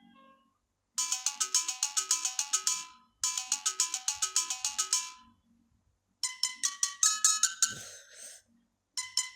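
Samsung Galaxy Note 3 stock ringtone playing: quick chiming notes in short melodic phrases about two seconds long, separated by brief pauses. About six seconds in the phrase changes to a falling run of notes.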